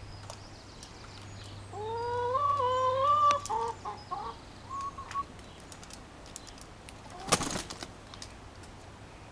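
Domestic hens calling: one drawn-out squawk about two seconds in, followed by a run of short clucks. Near seven seconds comes a brief, loud rush of noise, the loudest moment.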